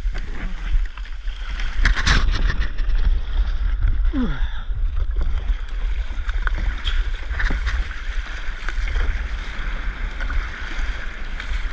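Kayak paddling out through the shore break onto open water: paddle blades splashing and water washing around the hull, with a steady wind rumble on the microphone. There are sharp splashes here and there, the loudest about two seconds in.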